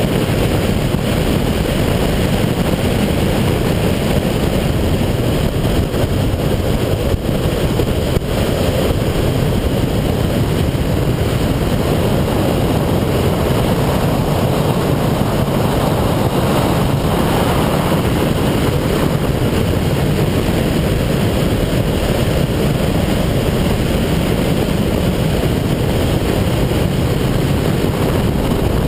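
A 2008 Subaru Impreza 2.5i driving at speed, heard from its onboard camera: a steady, unchanging rush of wind and road noise with the engine's drone underneath.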